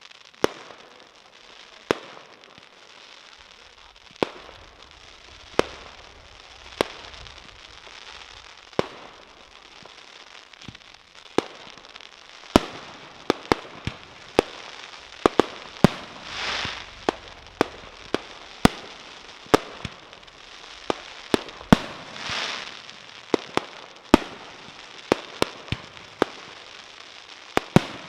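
Fireworks display: shells bursting with sharp bangs, every second or two at first and coming faster after about twelve seconds, over a steady crackle. Three times a hissing swell rises and fades over about a second.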